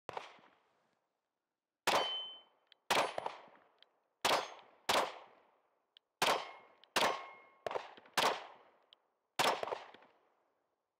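Smith & Wesson Shield Plus pistol firing about ten shots at an uneven pace, some of the hits followed by the brief ring of steel plate targets.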